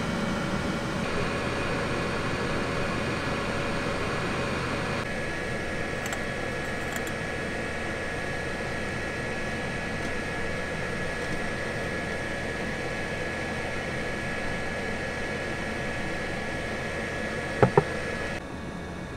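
Divasto 3.0 diesel parking heater running, its fan blowing warm air as a steady hum with a few fixed tones. Near the end come two sharp knocks, close together, as a glass is picked up from a wooden table.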